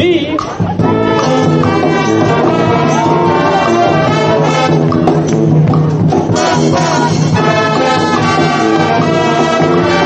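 Live street brass band playing, trumpets and trombones together, coming in about a second in.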